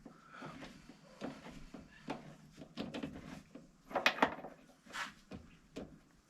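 Scattered metallic clicks and knocks as a workpiece is fitted and tightened in the Myford ML7 lathe's three-jaw chuck, with a louder cluster of knocks about four seconds in.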